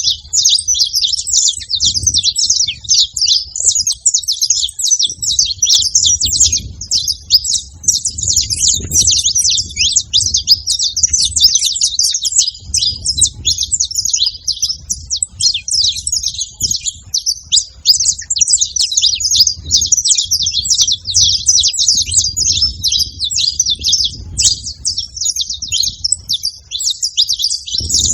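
Saffron finches chirping and chattering nonstop, many short calls overlapping as from a flock, over a low uneven rumble.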